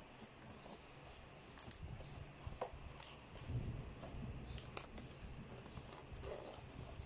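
Cardboard shipping box being opened by hand: its flaps rustling and scraping, with a few sharp clicks and soft thumps as the box is handled.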